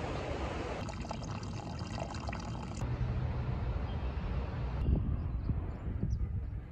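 River water rushing over shallow rapids, heard as a steady wash with a low rumble beneath it. The background changes abruptly about one, three and five seconds in.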